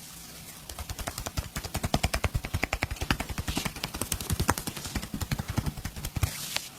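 Rapid percussive massage strokes: hands chopping or slapping on bare skin at about eight strikes a second. The strikes begin about half a second in and stop abruptly near the end.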